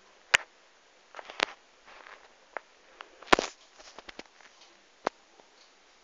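Hoover Dynamic front-loading washing machine tumbling a wet load of clothes slowly during a 30 °C coloureds wash, with irregular sharp clicks and knocks from the clothes and their fastenings hitting the drum and some soft splashing; the loudest knock comes about halfway through.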